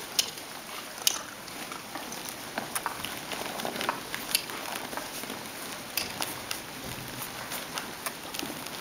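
Rain pattering on a roof: a steady hiss with scattered sharp ticks throughout.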